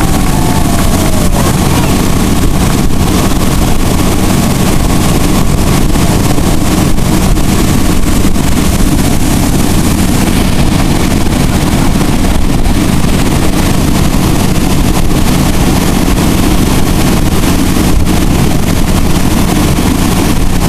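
Towboat's motor running steadily at speed, with wind on the microphone and the rush of the churned wake.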